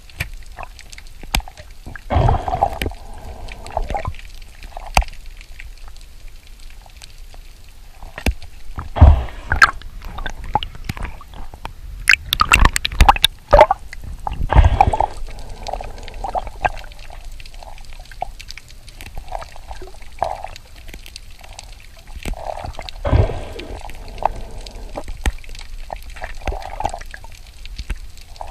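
Underwater sound through a submerged camera: water gurgling and sloshing with many scattered sharp clicks and crackles. Several louder bubbling surges come and go, the biggest a little after the middle.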